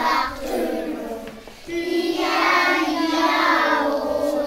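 Young children singing, with a long held note from just under two seconds in.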